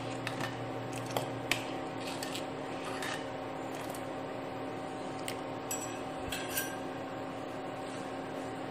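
Spoon stirring masala chai in an aluminium pot, clicking and scraping against the metal a few times, over a steady hiss from the pot simmering on the stove. The stirring is what keeps the milk from boiling over.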